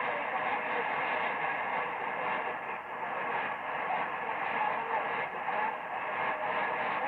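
Shortwave AM reception through an Icom IC-R75 receiver tuned to Radio Vanuatu on 9960 kHz: steady hiss and static, with the weak, distant broadcast barely rising above the noise. The sound is narrow and muffled, as AM radio is.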